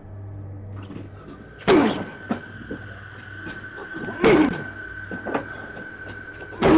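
Three heavy bangs on a door, about two and a half seconds apart, each with a short falling ring after it, over a steady low hum.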